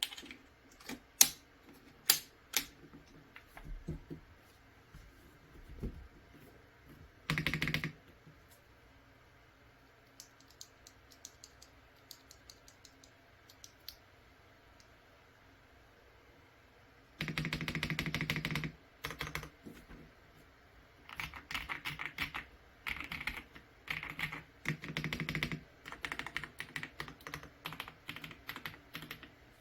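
Typing on an Akko TAC87 mechanical keyboard with Akko Stellar Rose switches. A few separate sharp key clicks come first, then bursts of rapid keystrokes with pauses between them, the clicking growing busier in the second half.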